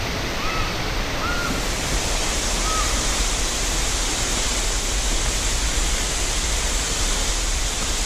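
Eden Falls, a tall waterfall, pouring with a steady rush of falling water. A bird gives about four short chirps in the first three seconds.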